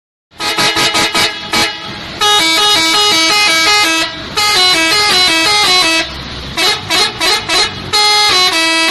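Multi-tone 'telolet' musical horn playing a tooting tune of stepping notes. It starts with a quick run of short toots, goes into longer melodic phrases with short pauses between them, and has another run of quick toots shortly before the tune resumes near the end.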